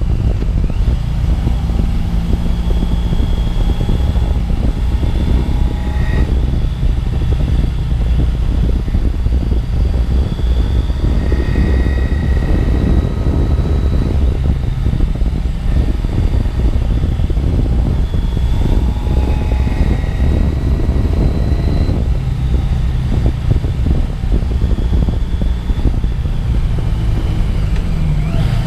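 A 1982 Yamaha XJ750 Seca's air-cooled inline-four engine running steadily while the motorcycle rides along at road speed.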